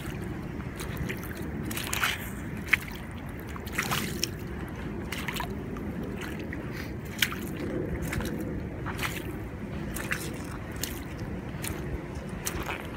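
Canvas sneakers squelching and sloshing through wet mud and puddles: irregular short, wet, sucking footsteps over a steady low rumble.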